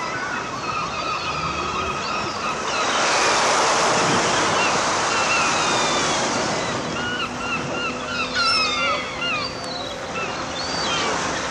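Wind and distant surf on an open beach, with wind buffeting the microphone and growing louder for a few seconds about three seconds in. Many short bird chirps sound over it.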